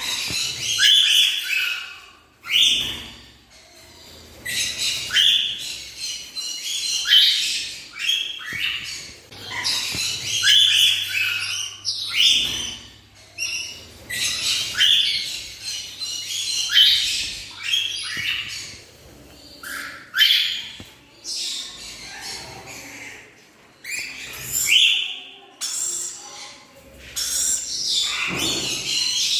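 Black-winged lory calling: short, shrill squawks and chirps, many falling in pitch, repeated every second or two.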